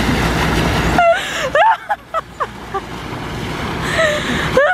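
Pool water splashing hard as people throw sprays of water at each other, with a loud rush that stops abruptly about a second in. After that come short, high shouts and whoops from the splashers over continued splashing.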